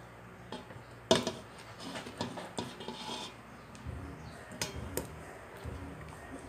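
Whole raw fish being laid by hand into a stainless steel pot from a plate: scattered clinks and taps of the plate and fish against the metal pot, with some rubbing, the sharpest clink about a second in.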